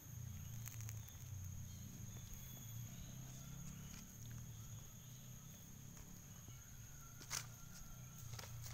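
Faint outdoor ambience: a steady low rumble under a thin, steady high-pitched whine, with soft scattered clicks as a calf steps about on dry leaves and one sharper click about seven seconds in.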